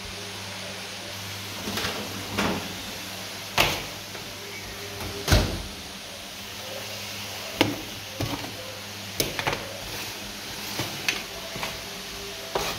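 Irregular knocks and clatters of an oven door and a metal sheet pan of browned oxtail being handled with oven mitts. The loudest thump comes about five seconds in, over a steady low hum.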